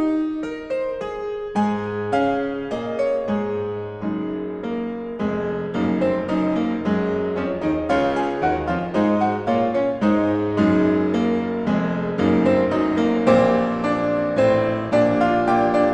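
Background piano music: a steady flow of struck notes and chords, growing a little louder toward the end.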